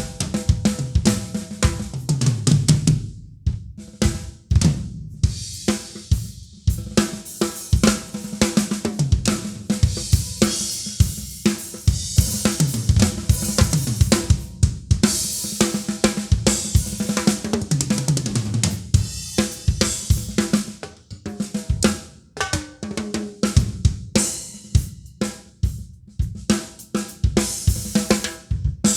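Acoustic drum kit played solo: bass drum, snare, toms and cymbals in rapid, busy patterns, with stretches of ringing cymbal.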